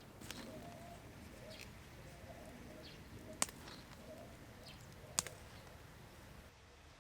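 Faint outdoor background with a faint wavering call and two sharp pops or clicks, a little under two seconds apart, the loudest sounds.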